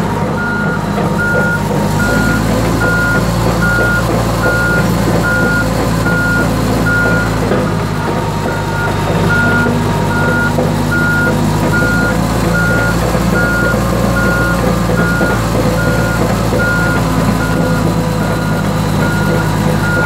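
Komatsu D85EX-15 bulldozer's backup alarm sounding a steady series of evenly spaced beeps, with the diesel engine running underneath, a little louder from about two seconds in.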